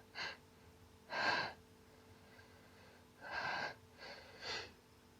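A woman's short, breathy gasping intakes of breath, four of them spaced a second or two apart: the build-up of a hay-fever sneeze.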